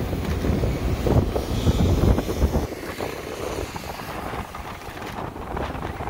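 Wind buffeting the microphone over a background of street traffic noise, the low rumble easing after about two and a half seconds.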